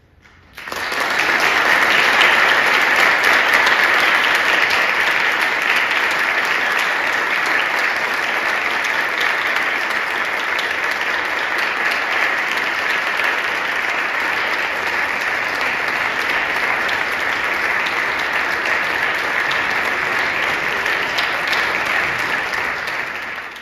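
Audience applauding, breaking out suddenly about half a second in and holding steady, then tapering off near the end.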